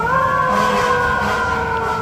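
Fire truck siren wailing: the pitch rises briefly at the very start, then falls slowly and steadily.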